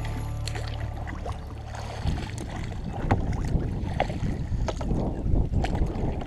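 Wind rumbling over the microphone out on a kayak, with scattered small clicks and knocks.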